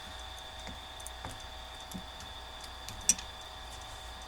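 Scattered light clicks and taps from small objects being handled, with one sharper click about three seconds in, over a steady electrical hum.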